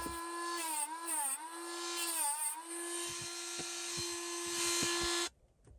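Small high-speed rotary tool with a cutting disc running, slotting the heads of seized screws. Its pitch sags twice as the disc bites into the metal, then the tool switches off about five seconds in.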